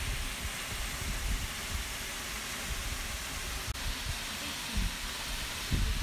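Large waterfall pouring into its pool, a steady rushing hiss, with gusts of wind rumbling on the microphone.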